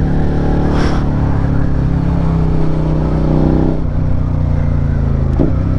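Suzuki SV650 V-twin motorcycle engine running steadily at moderate road speed, heard from the rider's seat with road and wind noise, easing slightly about four seconds in.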